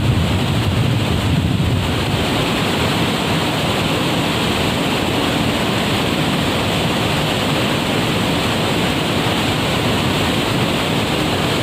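Waterfall: a loud, steady rush of falling water that does not rise or fall.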